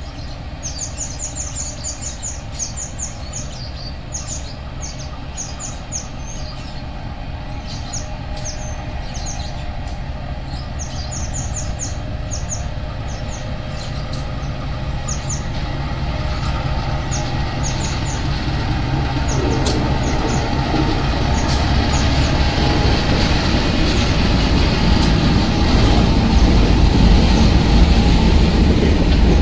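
A pair of CC 201 diesel-electric locomotives running at low speed, their engines growing steadily louder as they approach and pass close by.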